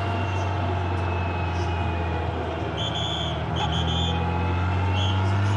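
Suzuki GSX-R1000 endurance racebike's inline-four engine running steadily at low revs, picked up close by the bike's onboard camera. A few short high-pitched tones sound about three seconds in and again near the end.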